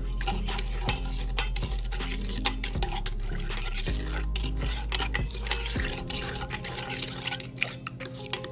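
A utensil stirring warm milk, sugar and yeast in a bowl, with quick irregular clicks and scrapes against the bowl's side.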